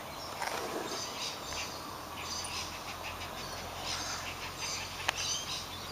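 Small birds chirping and twittering over and over, with a faint steady low hum behind them and one sharp click about five seconds in.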